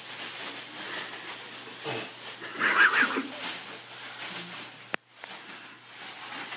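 Black plastic trash bag rustling and crinkling as it is pulled on over the arms and shoulders. A short loud vocal outburst from a person comes about three seconds in, and a single sharp click about five seconds in.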